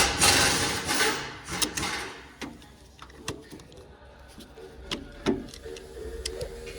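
Metal door latch assembly being handled and worked into the door: a rough scraping rattle for about two seconds, then scattered sharp clicks and knocks.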